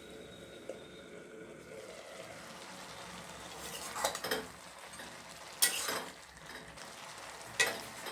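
A metal spoon scraping and knocking against a cooking pan as cabbage and dal are stirred, in a few sharp clatters about four, six and seven and a half seconds in.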